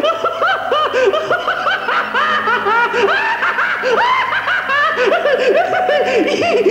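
High-pitched recorded laughter played back from a sound-tape montage: a quick run of short rising-and-falling 'ha' notes, several overlapping.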